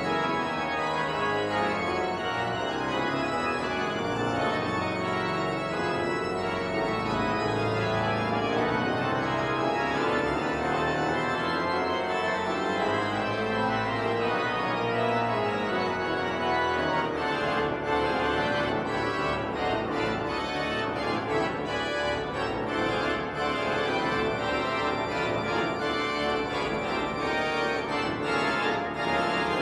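Pipe organ playing a solo piece: full, sustained chords over a pedal bass, moving into quicker, busier figures about halfway through.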